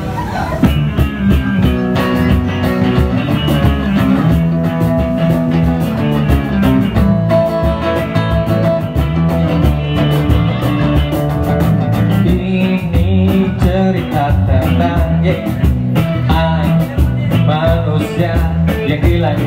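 Acoustic band playing the instrumental intro of a pop ballad: strummed acoustic guitar with electric guitar, bass guitar and cajon keeping a steady beat.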